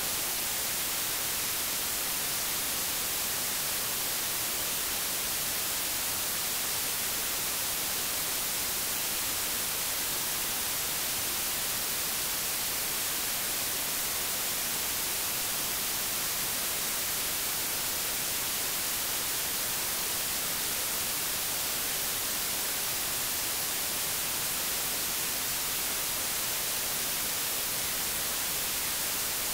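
Steady, unchanging static hiss with no other sound: the noise of a VHS tape's audio track.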